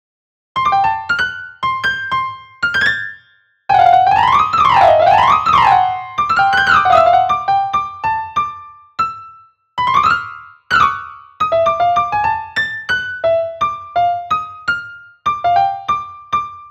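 Solo piano music: a melody of separate struck notes, with quick runs up and down about four seconds in.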